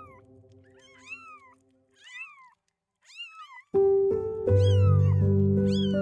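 A kitten meowing over and over, short thin mews that rise and then fall in pitch, about one a second. Background music cuts in suddenly partway through and is louder than the mews.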